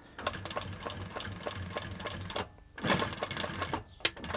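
Hightex 7138 industrial compound-feed walking foot sewing machine stitching through denim in two short runs, with a brief stop between them, about two and a half seconds in, while the reverse lever is being demonstrated.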